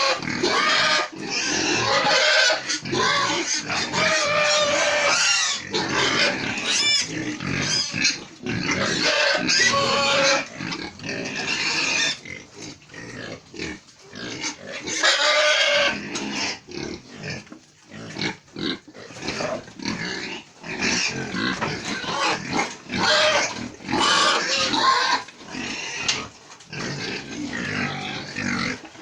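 Domestic pigs squealing and grunting loudly, one cry after another with only short gaps, easing off in places.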